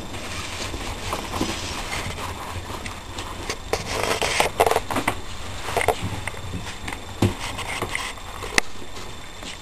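Puppies scrambling and tussling on a newspaper-covered floor: rustling, crackling paper with scattered small knocks and scrapes, busiest about four to six seconds in.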